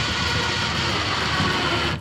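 Power drill running steadily as it bores a pilot hole, stopping abruptly at the end.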